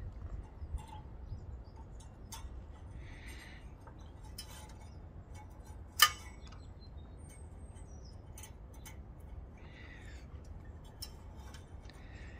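Small metal clicks and ticks of needle-nose pliers and a thin governor spring against the engine's governor arm and throttle linkage as the spring is being hooked on, with one sharp, louder click about six seconds in.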